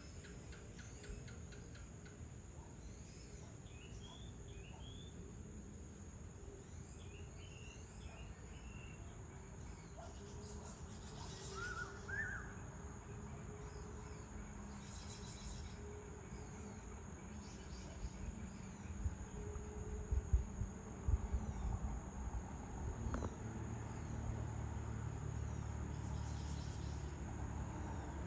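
Evening outdoor ambience: a steady, high insect drone with scattered short bird chirps. A low rumble grows louder in the second half.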